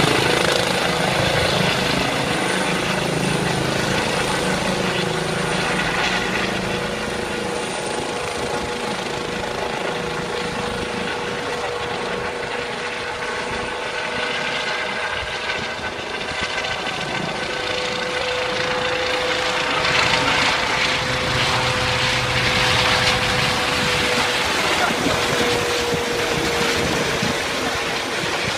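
Air ambulance helicopter flying after a night take-off: a steady rotor and engine noise with a steady whine. It fades somewhat around the middle and grows louder again later on.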